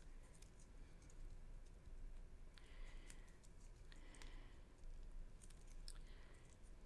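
Near silence with faint clicks and soft crinkling of a thin acetate strip being folded by hand into a small accordion spring.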